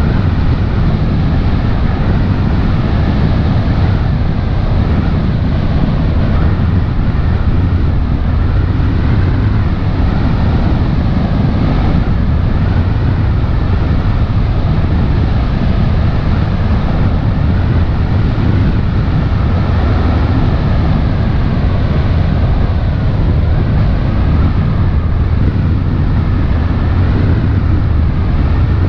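Passenger launch's engines running steadily at cruising speed, a loud, even drone, with wind blowing on the microphone.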